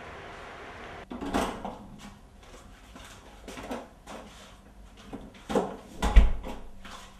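A run of knocks and clatters of someone moving about a small room, then a door shut with a heavy thud about six seconds in.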